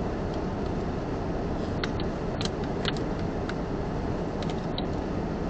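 Steady in-cabin noise of a stopped car idling, with a few faint ticks in the middle.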